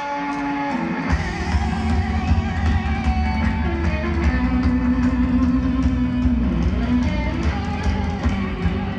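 Live rock band playing over a festival PA: electric guitar, with bass and drum kit coming in about a second in and keeping a steady beat.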